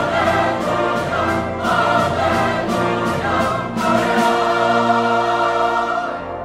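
Mixed choir singing a festive Christmas anthem in Latin, accompanied by brass, organ and percussion, with regular percussion strokes under the voices for the first few seconds before the chords are held.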